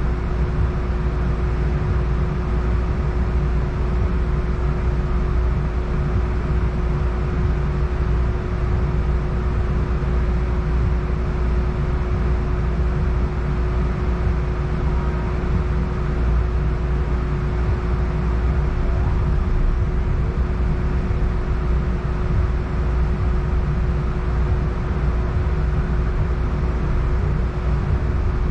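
Inside a Siemens S70 streetcar standing at a stop: the car's onboard equipment runs with a steady low rumble and a constant hum tone.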